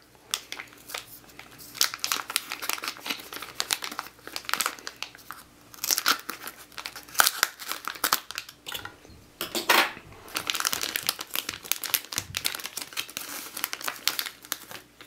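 Plastic packaging crinkling and tearing in irregular bursts as it is cut open and pulled off.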